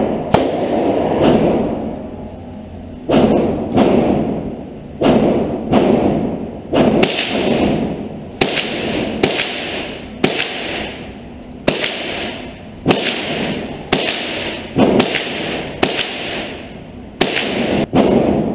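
.22 rifle firing in an indoor range: a steady string of about fifteen sharp shots roughly a second apart, each followed by a short echo off the range walls.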